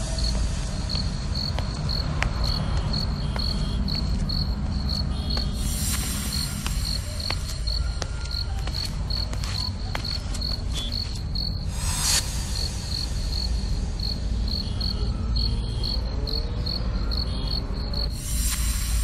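Crickets chirping steadily at night, about two high chirps a second, over a steady low rumble, with a short hiss about every six seconds.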